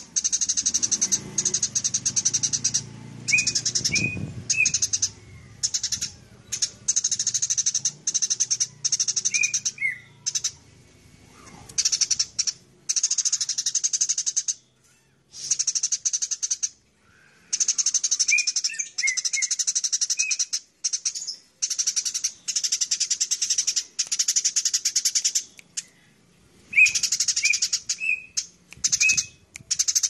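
Eurasian tree sparrows chattering in fast, dense bouts of agitated fighting calls, each bout lasting one to several seconds with brief gaps between. A few short, separate chirps stand out here and there.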